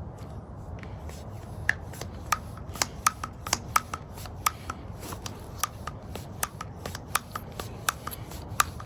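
Hand tire pump being worked to inflate a 20 by 4 inch e-bike inner tube, with irregular sharp clicks from the pump, two or three a second, starting about a second and a half in.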